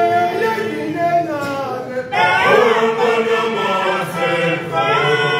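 Male choir singing in harmony, with held notes and a break between phrases about two seconds in and again near the end.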